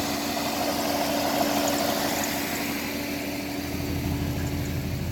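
A GM truck V8 engine running steadily, with a constant whine over it that stops a little before the end. The owner puts the noise down to the thrust bearing in the block.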